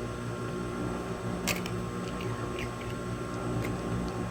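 Light clicks and ticks of hands working the thread through a sewing machine's guides while threading it, the sharpest about one and a half seconds in, over a steady electrical hum.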